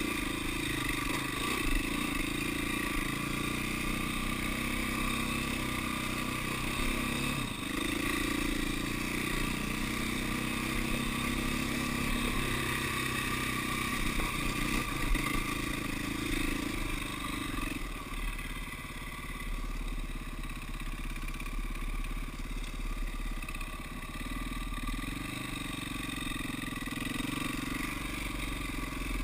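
KTM dirt bike engine running as the bike is ridden along a dirt trail, its note changing with the throttle and a little quieter from about 18 seconds in.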